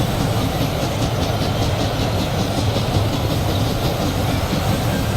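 Steady mechanical rumble with a fast, even clatter.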